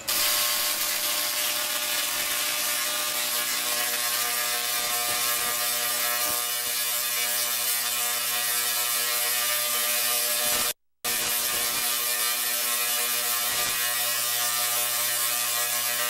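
High-voltage electric sparks arcing from a performer's hands, giving a loud, steady buzzing crackle like a rapid ratchet. It cuts out for a moment about eleven seconds in, then resumes.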